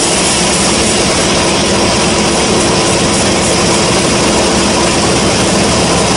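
Sawmill bandsaw running, a loud, even machine noise with a steady hum under it.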